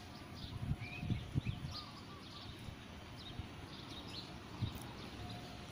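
Small birds chirping in short, scattered calls over a steady outdoor background hum, with a few soft low thuds.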